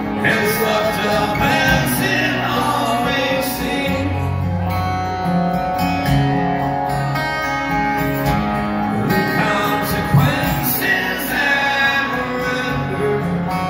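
Live acoustic band: several acoustic guitars strumming, with a male voice singing in places, heard from the audience of a concert hall.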